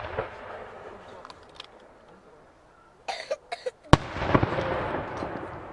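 Aerial firework shell bursting with one loud, sharp bang about four seconds in, followed by a long echo. A fainter bang sounds at the very start.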